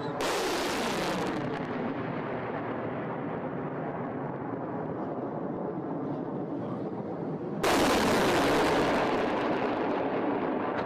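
Missile rocket motors at launch: a loud rushing noise that starts suddenly, settles to a steady rumble as the missile climbs away, then starts loud again suddenly about three quarters in with the next launch.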